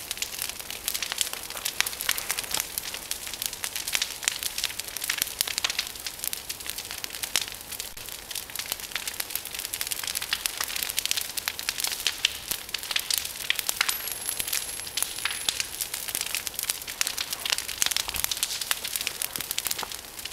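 Brush pile of branches burning in open flames, crackling with a dense, continuous run of sharp pops.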